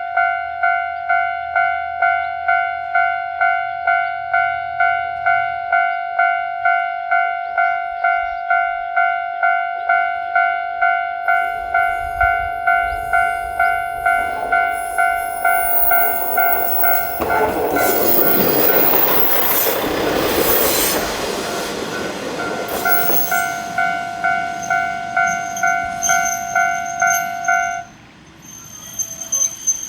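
Japanese level-crossing warning bell dinging steadily while a diesel train rumbles up and passes over the crossing, loudest midway and then fading. The bell stops shortly before the end.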